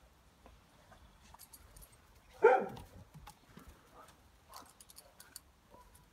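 Vizsla puppy giving one loud bark about two and a half seconds in, falling in pitch as it fades, with faint scattered clicking from the metal clip of the lead it is chewing.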